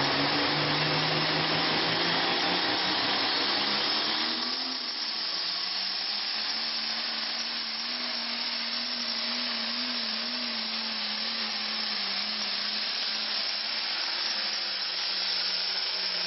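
Turbocharged diesel engine of a pulling tractor at full throttle, dragging a weight-transfer sled. The engine pitch climbs over the first four seconds, then holds high and fairly steady over a loud turbo hiss.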